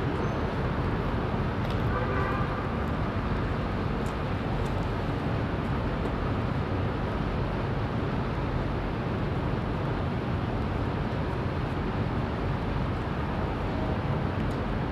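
Steady city street ambience: a continuous low rumble of traffic noise.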